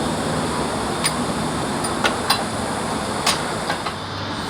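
Scattered sharp metallic clicks and clinks, about six at irregular intervals, from hand tools (spanners) on a car's engine mount bolts, over a steady background hum.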